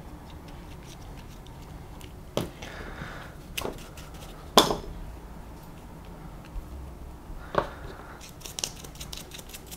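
RC buggy shock absorber parts handled on a workbench: four sharp clicks and taps of small hard parts, the loudest about four and a half seconds in, with a short brush scrub near the start of them and a few light ticks near the end.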